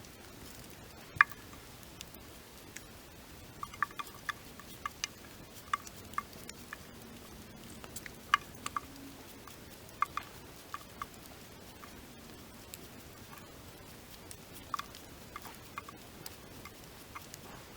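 Crackling from cooking over an open fire: sharp, irregular pops and snaps, sometimes a few in quick succession, over a faint steady background.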